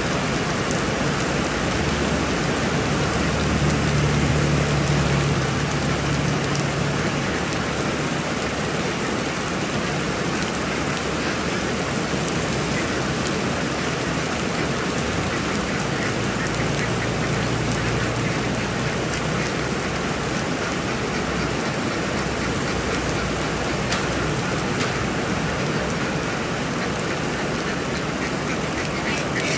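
Heavy rain falling steadily, with a low hum rising out of it twice for a few seconds at a time.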